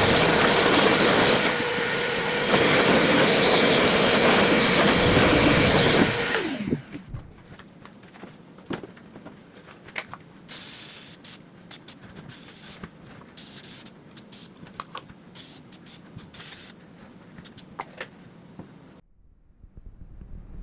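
An electric motor runs steadily with a high whir and a constant tone, then is switched off about six seconds in and winds down. Light clicks and taps from handling follow.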